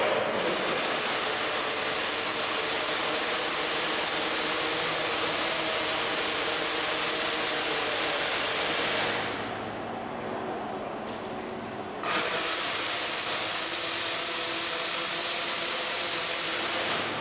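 Robotic wire-feed arc welding torch welding steel pallet-rack load beams to their end clips: a steady arc hiss and crackle. It runs for about nine seconds, stops for about three, then a second weld runs for about five seconds and cuts off suddenly. A faint steady machine hum runs underneath.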